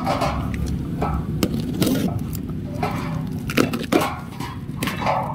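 Utility knife slitting the packing tape and cardboard of a parts box, in short irregular scraping strokes with sharp clicks and cardboard rustling as the box is handled.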